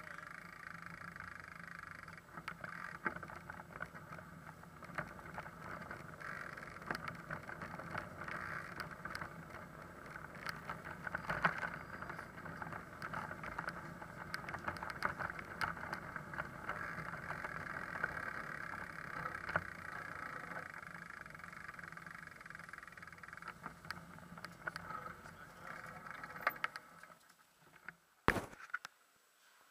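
Road noise and rattling from a bicycle-mounted camera riding over brick and cobblestone paving, with many small knocks. The noise drops away near the end, followed by one sharp knock.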